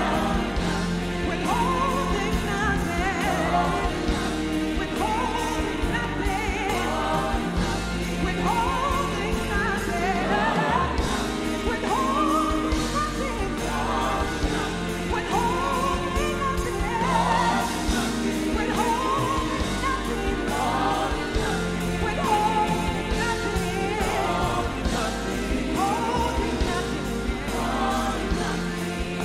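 Live gospel worship song: a female lead singer with backing vocalists, over a band of keyboards, drums and bass guitar, sung as a slow, sustained melody.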